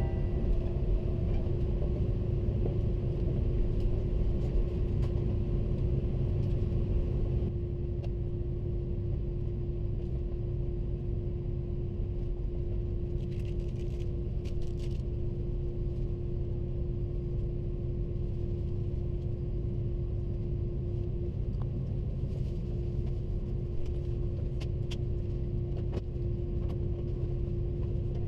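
Airbus A330-300 cabin noise during taxi: a steady low rumble of engines and airflow with a constant hum over it, easing slightly about seven seconds in, with a few faint clicks.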